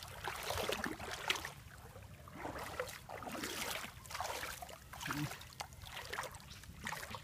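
Shallow water splashing and sloshing in irregular bursts as a bamboo plunge basket is worked into the muddy bottom and hands grope inside it for fish.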